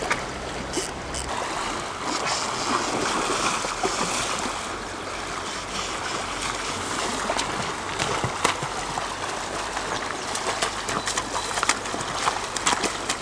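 River current running over stones in the shallows, with splashing as a hooked chinook salmon is brought in and landed at the water's edge; sharp clicks and splashes come thickest near the end.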